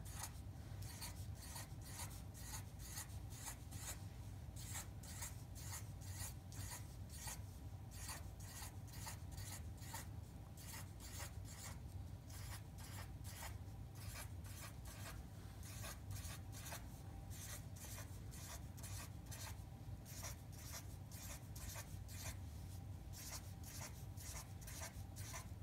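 Sharpie marker tip rubbing on paper as small loops are drawn: faint short strokes a few times a second, over a steady low hum.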